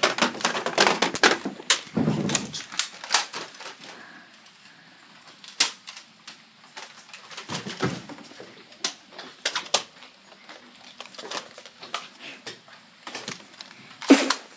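Rapid clicks and knocks of handling and bumping, dense for the first few seconds and then scattered, with a sharper knock near the end.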